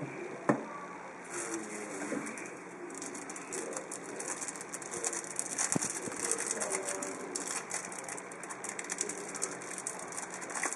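Sealed plastic trading-card pack wrapper crinkling and rustling as fingers work at its seams, which are hard to open. There is a sharp click about half a second in and another a little before the middle.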